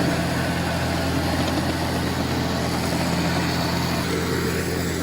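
Heavy machine's engine running steadily with an even, low hum that holds one pitch.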